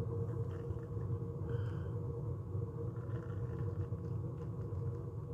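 Steady low background hum with a constant tone, over faint light taps and rubbing as a pocketknife is handled and set on a rubber mat.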